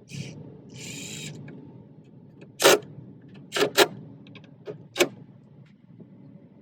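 Handling and refitting car door parts: two short rustles, then four sharp knocks and clicks, two of them close together in the middle, as pieces are set and snapped into place.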